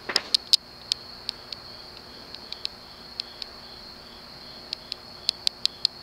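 Broan P4200 ceiling fan with a cast-iron spinner motor, running at about medium speed on its variable low setting: a faint motor hum under a steady high-pitched whine. Irregular sharp ticks, the loudest sounds, come several times a second.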